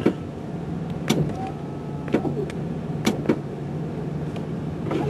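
Steady low hum of a truck idling, heard from inside the cab, with a few sharp clicks: one about a second in and two close together around three seconds in.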